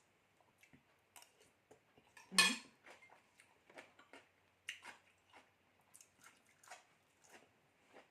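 Eating sounds: scattered small clicks of cutlery and dishes, with one louder clatter about two and a half seconds in.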